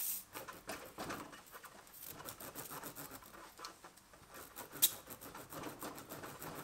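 Reaming tool from a tyre plug kit being twisted and pushed in and out of a nail hole in a tyre tread to widen it: irregular rubbery scraping and squeaking, with one sharp click near five seconds in.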